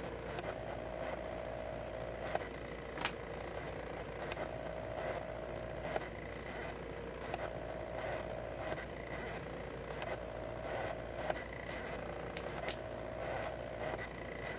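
Stepper motors of a 2000 mW diode laser engraver running while it engraves. A steady whine is broken by short ticks every second or so, with two sharper clicks near the end.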